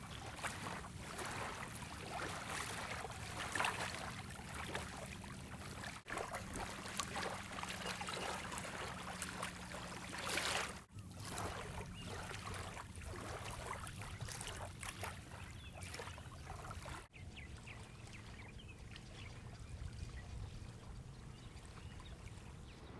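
Steady rushing outdoor noise of wind and water at the shore, with a few louder swells. It cuts off abruptly about six, eleven and seventeen seconds in, and is quieter after the last break.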